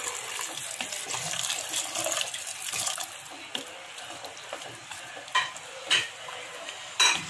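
Water pouring in a stream into a pot of chickpea curry for about the first three seconds, then a wooden spatula stirring the watery curry, with a few sharp knocks of the spatula against the pot near the end.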